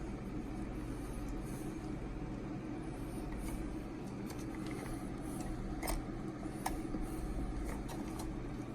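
Light scattered clicks and ticks of a hex driver working a small screw into an RC truck's wing mount, over a steady low electrical hum.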